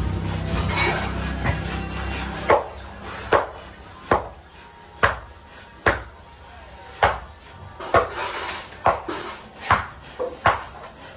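A tool striking wood in a steady rhythm, about one sharp blow a second, starting a couple of seconds in. A low steady hum fades out before the blows begin.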